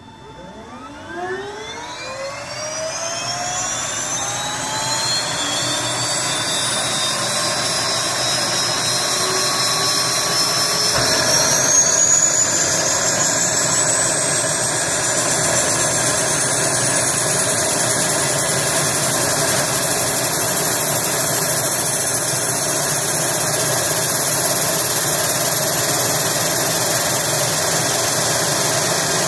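Pilatus PC-12 NG's Pratt & Whitney PT6A turboprop engine starting: a whine rising steadily in pitch for about eleven seconds as the turbine spools up. The sound then changes and settles into a steady high turbine whine at idle.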